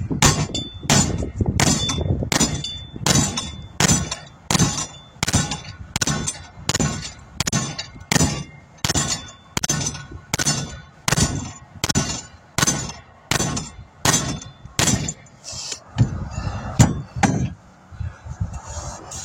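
Hammer beating repeatedly on the bent lip of a car wheel rim to straighten it: a steady run of clanging blows about every three-quarters of a second, each with a short metallic ring. The blows stop shortly before the end.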